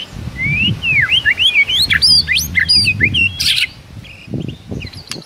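White-rumped shama singing a fast run of varied whistled notes that sweep up and down, with a harsh rasping note about three and a half seconds in, then a few quieter scattered notes near the end. A low rumble runs underneath the song.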